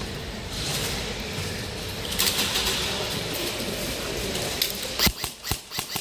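Rustling movement noise, then from about five seconds in a quick run of sharp snapping shots, about four a second, typical of an airsoft gun firing.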